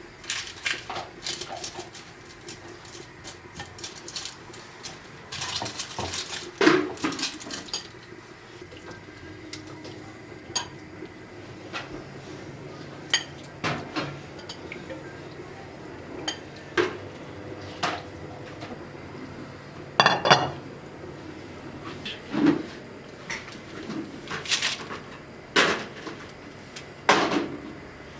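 Dishes and cutlery being handled: irregular clinks and knocks of crockery and metal utensils, one clink about two-thirds of the way through left ringing.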